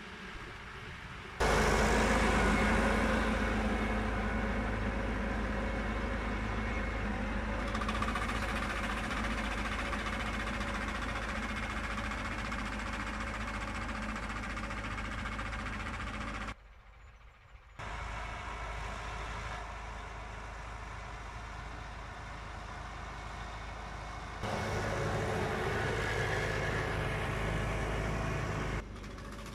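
Tractor engine running steadily while pulling a trailed boom sprayer across a field. The sound changes abruptly several times between shots, with a short quieter dip about 17 seconds in.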